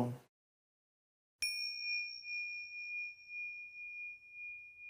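A small metal bell struck once about a second and a half in, then ringing on with a single high tone that wavers slightly as it slowly fades.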